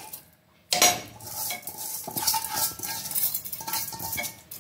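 Slotted steel spoon scraping and clinking against an aluminium pressure cooker as raw rice is stirred into cooked chana dal, with short metallic rings. It begins after a brief hush near the start.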